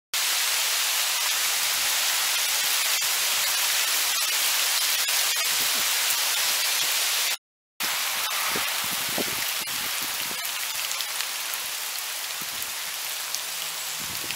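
Small hailstones falling steadily onto a paved driveway and dead leaves: a dense hiss of countless tiny ticks. It drops out for a moment about seven seconds in, then goes on slightly quieter.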